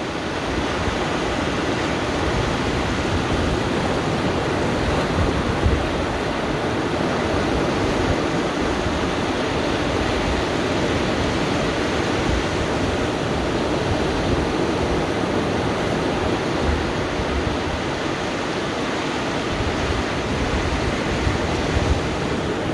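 Sea surf breaking and washing on a sandy beach, a steady wash of waves with occasional low buffets of wind on the microphone.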